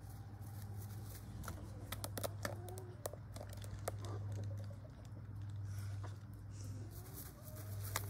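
A brown pelican moving about on grass: faint scattered clicks and rustles, over a steady low hum.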